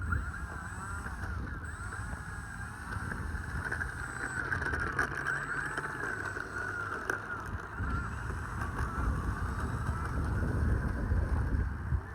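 A flock of geese honking, many birds calling over one another without a break, with a low wind rumble on the microphone.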